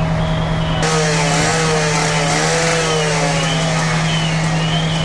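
A gasoline power saw starts running about a second in, its engine pitch rising and falling as it works, over the steady drone of a fire apparatus engine.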